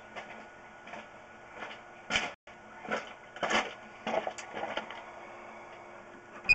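Irregular clicks and short scraping knocks, about a dozen spread over a few seconds, with a faint steady hum underneath. The sound drops out completely for a moment a little over two seconds in.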